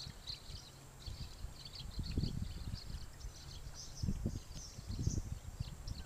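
A large flock of small birds calling all at once: a constant chatter of many short, high chirps. Low rumbling gusts, the loudest sounds, come and go over it.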